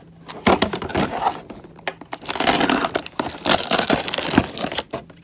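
Clear plastic packaging and cardboard being handled and pulled out of a toy box: irregular crinkling and crackling with sharp cracks, loudest from about two to four and a half seconds in.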